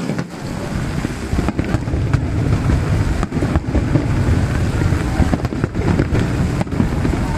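Aerial fireworks going off in quick succession: a continuous deep rumble of booms, with many sharp cracks.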